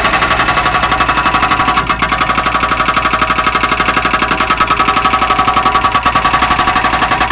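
Excavator diesel engine running steadily close by, with a fast, even rhythmic clatter.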